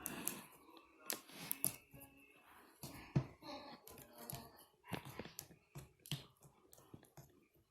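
Hands working slime, giving a string of sharp, irregular clicks and pops.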